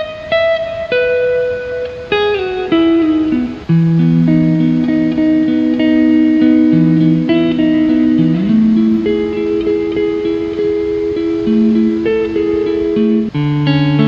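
Calm instrumental music on guitar, with held notes changing every second or two and now and then sliding up in pitch.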